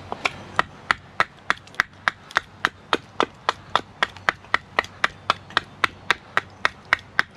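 Rapid, evenly spaced chopping strikes on wood, about three a second, cutting off suddenly near the end.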